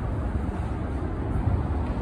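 Steady low rumble of outdoor background noise, uneven and buffeting, with no distinct events.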